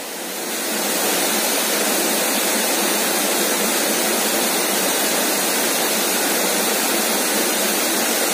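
Shallow creek water rippling and splashing over stones, a steady rushing that grows louder over the first second and then holds even.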